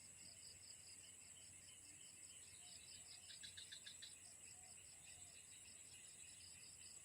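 Faint insect chorus: a steady high-pitched buzz with a pulsing chirp about four times a second, and a brief louder trill about three seconds in.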